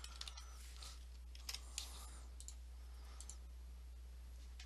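A few scattered computer keyboard keystrokes and mouse clicks, faint over a steady low hum.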